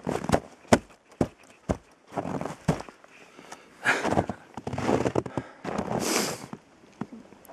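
Footsteps crunching through old, crusted snow: a few sharp cracks at first, then longer crunching steps.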